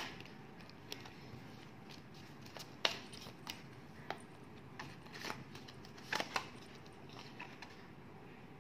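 Oracle cards being handled and laid down on a table: scattered soft clicks and taps, a couple of sharper ones about three and six seconds in, over a faint steady hiss.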